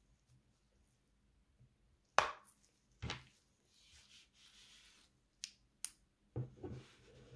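A few sharp metallic clicks and knocks as a small metal flashlight is handled and switched on. There is a soft rustle in the middle, and the loudest click comes about two seconds in.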